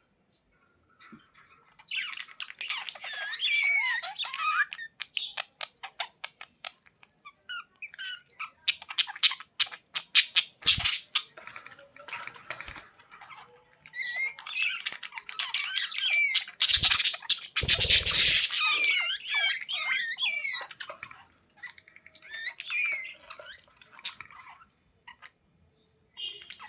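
Budgerigars chattering and warbling in quick wavering chirps and clicks. The chatter comes in bursts with short pauses, and there are a few low thumps near the middle.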